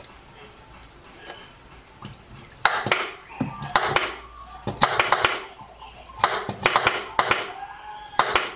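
A nearly empty plastic squeeze bottle of sweet chilli sauce squeezed upside down, spluttering out sauce and air in crackling squirts. The squirts start a couple of seconds in and come in clusters about once a second.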